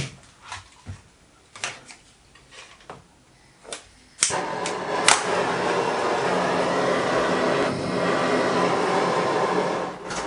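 A few light clicks and knocks of handling, then about four seconds in a gas-cartridge blowtorch is lit and burns with a steady hiss, heating a copper model boiler for silver soldering.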